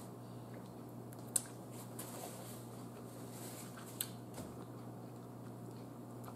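Faint chewing and wet mouth sounds from someone eating fried chicken wings close to the microphone, with a couple of soft clicks, over a steady low hum.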